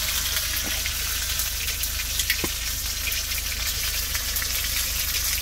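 Chilli frying in a pan: a steady sizzle with fine crackling.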